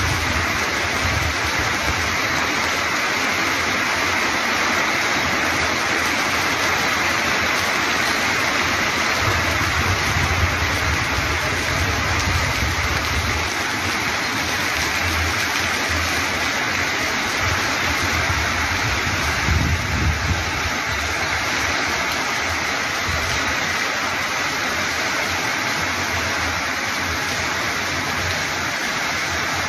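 Torrential rain falling in a loud, steady hiss, with brief low rumbles about ten and twenty seconds in.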